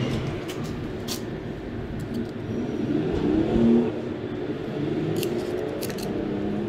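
Street traffic: a motor vehicle's engine running and accelerating, swelling to its loudest a little past the middle, with a few light clicks over it.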